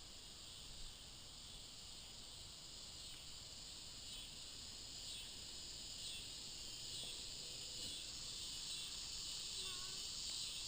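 A faint, steady, shrill chorus of insects, with a slight pulse, growing a little louder toward the end.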